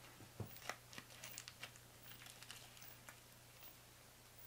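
Faint light clicks and taps of a utensil on a serving platter, with the handling of a lifting strip being pulled off a small meatloaf. The clicks are thickest in the first two seconds and thin out after about three, over a faint steady hum.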